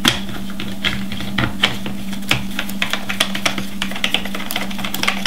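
Irregular plastic and metal clicks and taps of a Canon HV30 camcorder being fitted and fastened onto a homemade rig's mounting plate, over a steady low hum.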